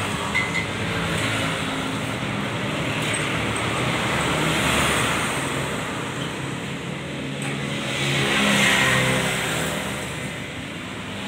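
Motor traffic going past, an even engine and tyre noise that swells twice as vehicles pass.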